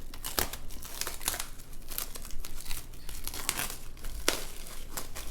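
Wrapping crinkling and crackling in irregular snaps as it is handled, most likely the covering being taken off a bowl of risen dough.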